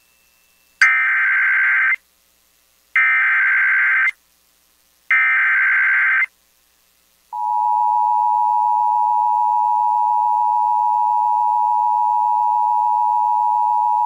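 Emergency Alert System broadcast for a severe thunderstorm warning. Three bursts of SAME digital header data, each about a second long and a second apart, play as a harsh electronic warble. From about seven seconds in the steady two-tone attention signal (853 and 960 Hz) sounds.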